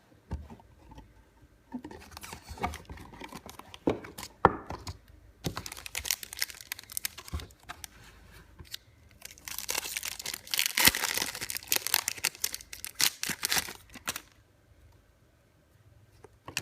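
A trading-card pack's wrapper being torn open and crinkled, with the cards handled, in a run of rustles and sharp clicks. The loudest crinkling comes in the second half, then it goes quiet near the end.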